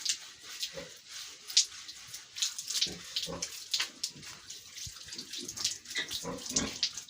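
A sow grunting in short, low grunts, about five times, while water splashes over her as she is washed.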